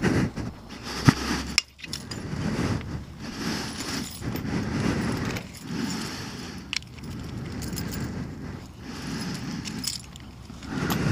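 A person's heavy, rhythmic breathing close to a helmet-mounted microphone, swelling with each breath about every one and a half to two seconds, with a few sharp metallic clicks.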